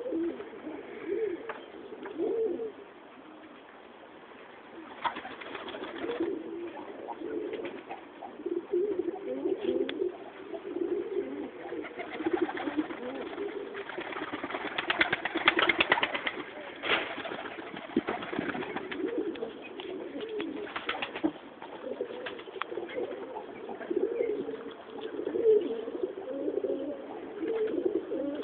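Tumbler pigeons cooing, one low phrase after another, with a few bursts of rustling noise, the loudest about halfway through.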